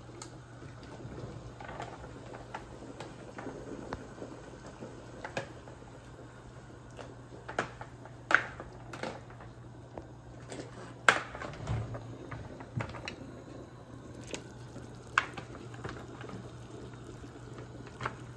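Water boiling in a large stainless steel stockpot, with a handful of sharp splashes as pieces of raw oxtail are dropped in, the loudest about eight, eleven and fifteen seconds in. A steady low hum runs underneath.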